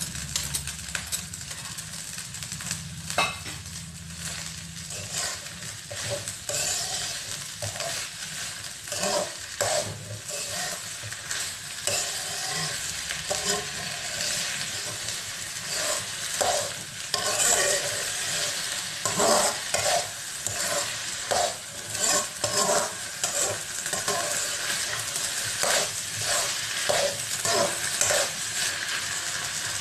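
A metal spatula stirring and scraping rice around a wok, with many short scrapes and knocks over a steady sizzle as the added sugar melts and gives off water.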